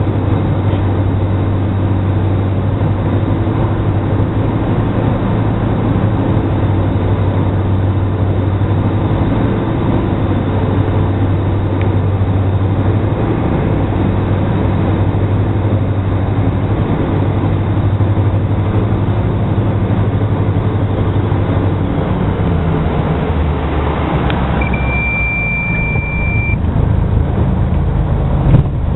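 The twin Austro AE300 turbo-diesel engines of a Diamond DA42NG running, heard inside the cabin as a steady drone. The engine note drops lower a little past two-thirds of the way through, a steady high beep sounds for about two seconds, and the engines get louder again near the end.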